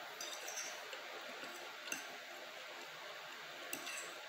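Fork and knife tapping lightly against a glass plate while eating: a few short, faint clicks, one near the start, a sharper one about two seconds in, and two near the end.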